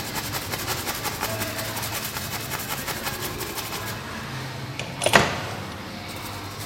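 A small brush scrubbing a phone's logic board in quick, repeated scratchy strokes, cleaning off dirt. A single sharp knock comes about five seconds in.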